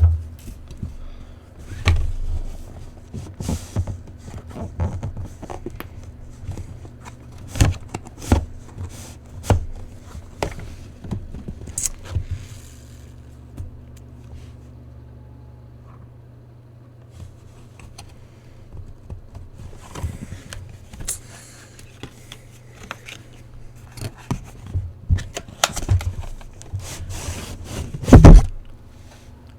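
A cardboard box and its packaging being handled and opened: scraping, rustling and light knocks in irregular bursts, quieter for a few seconds in the middle, with a loud thump near the end.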